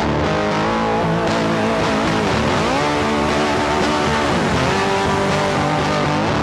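Background music led by electric guitar: sustained chords, with notes sliding up and then back down a few times.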